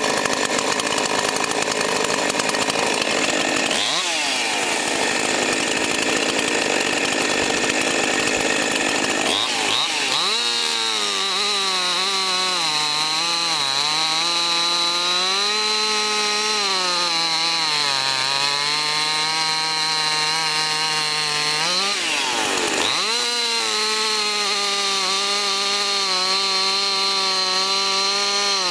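Husqvarna 346XP two-stroke chainsaw with an 18-inch bar and .325 chain, running at full throttle while cross-cutting a block of wood. The engine note wavers under the load of the cut, and drops and picks back up three times.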